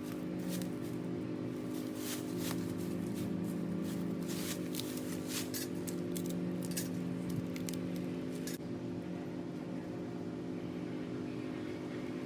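Small fire of tulip poplar bark and tinder crackling with irregular sharp pops, which stop abruptly about eight and a half seconds in, over a steady low hum.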